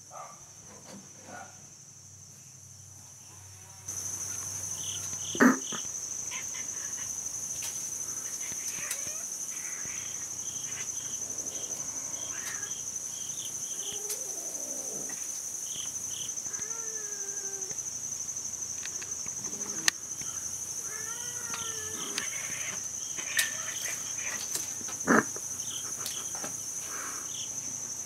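Steady high-pitched insect chirring, which starts abruptly about four seconds in, with two sharp knocks and a few faint gliding calls over it.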